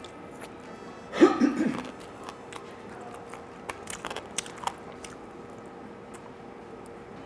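Close-miked eating of crispy fried chicken: biting and chewing, with one louder burst about a second in and a few sharp crunches around four seconds in.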